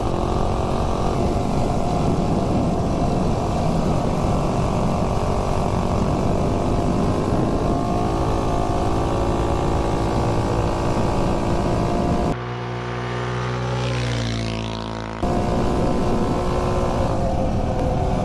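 Mega Moto 212 minibike's 212cc single-cylinder four-stroke engine running flat out on a top-speed run, geared with a 46-tooth rear sprocket, with steady wind rush on an on-board camera. For about three seconds past the middle, the sound turns a little quieter and changes character.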